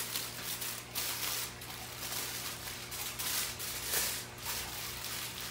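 Aluminium foil crinkling as it is folded and pressed by hand around a whole fish, in irregular rustles.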